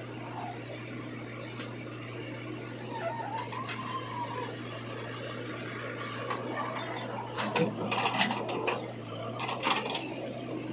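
A motor running with a steady hum, with a cluster of clattering knocks from about seven and a half to ten seconds in.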